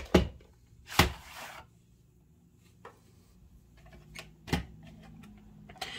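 VHS tape case being handled and opened to get at the cassette: a few sharp clicks and knocks, one near the start, one about a second in followed by a brief rustle, and another about four and a half seconds in.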